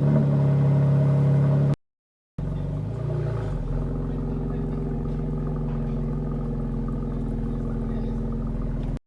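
BMW X3's engine running steadily, broken by a short cut to silence about two seconds in, with a brief rev up and down just after it resumes.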